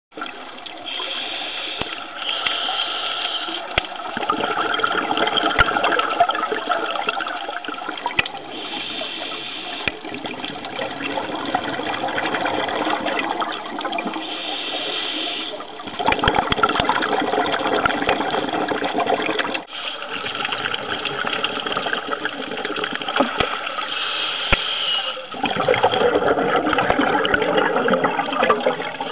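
Underwater water noise: a steady rush and gurgle of water and bubbles around the camera, with scattered sharp clicks and a brighter hiss every several seconds.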